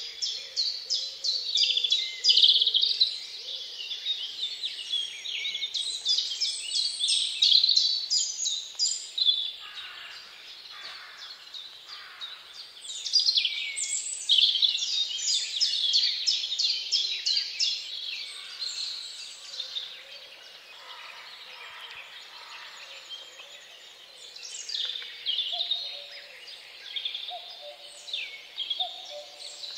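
Several songbirds singing at once: fast runs of repeated chirps and trills, thinning out for a few seconds past the middle, with short lower whistled notes near the end.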